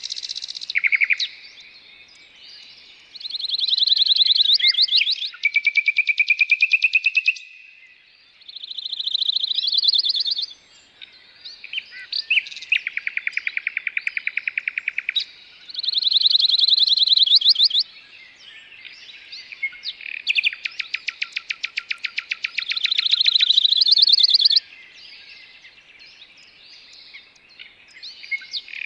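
Songbirds singing in trills: phrases of rapid repeated notes, each a second or two long, with short pauses between them and fainter chirps in the gaps.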